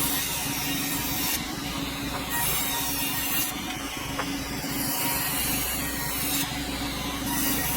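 Sawmill running, its blade cutting through a dense hardwood log: a steady machine hum under a rough hiss that comes and goes every second or so.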